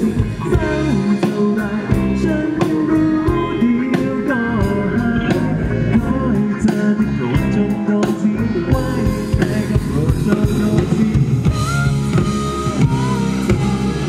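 A rock band playing live: electric guitars, electric bass and a drum kit over a steady beat, with a melody that slides between notes.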